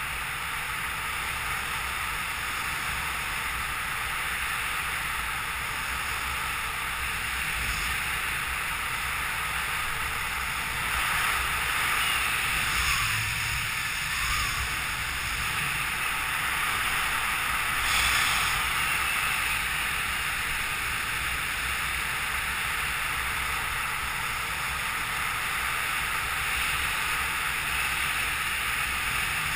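Steady wind rush over the camera's microphone during a speedriding flight. It swells a little about a third of the way in and again just past halfway.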